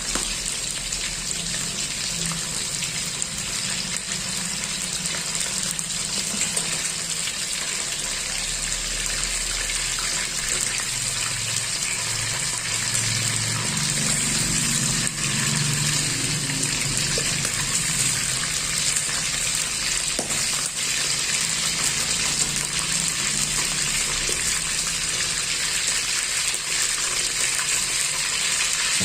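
Chicken pieces sizzling steadily as they fry briefly in a little oil in a pan.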